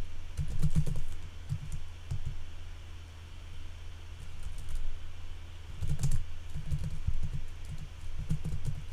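Typing on a computer keyboard in quick bursts of keystrokes, stopping for about three seconds in the middle, over a steady low hum.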